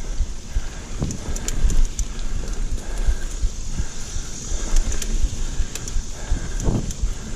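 A mountain bike ridden fast over a rough dirt singletrack. Tyres and wind on the microphone make a fluctuating low rumble, and the bike's drivetrain and frame give off irregular rattles and clicks as it goes over roots and bumps.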